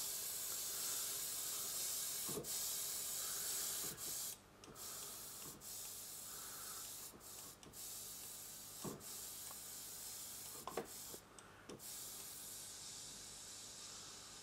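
A pitched-up applause sample from FL Studio's Flex synth plays as a steady hiss with scattered small crackles, meant to pass for vinyl noise. It drops out briefly a few times.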